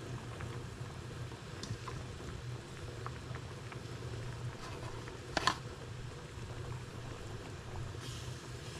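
Liquid bubbling in a cooking pot, with scattered small pops and one sharper, louder click about five and a half seconds in, over a steady low hum.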